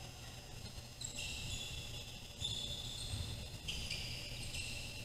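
Basketball shoes squeaking on a gym's hardwood court: several high-pitched squeaks about a second in, two and a half seconds in and near four seconds in, over the low rumble of gym noise.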